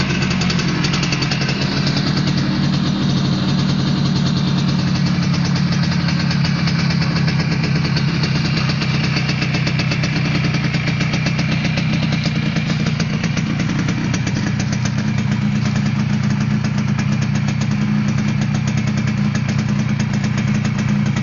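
A 1979 Suzuki GP100's single-cylinder two-stroke engine idling steadily, freshly rebuilt with a new crank, piston and rings. Its idle rises a little about two-thirds of the way through.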